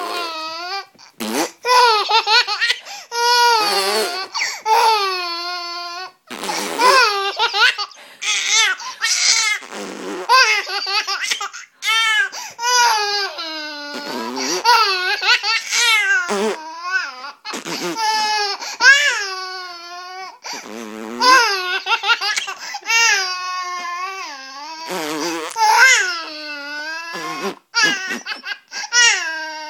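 Four-month-old baby laughing in repeated high-pitched fits of squeals and giggles, with brief pauses between runs.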